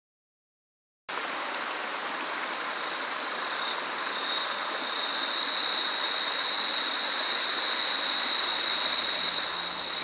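Stream water running over a rocky bed, a steady rush that starts suddenly about a second in, with a steady high-pitched tone over it. Music comes in faintly near the end.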